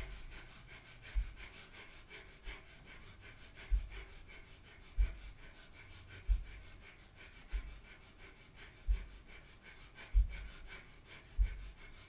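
Breath of fire: rapid, rhythmic, forceful breathing through the nose, many short pumped breaths a second. A soft low thump comes about every second and a quarter, keeping a steady beat.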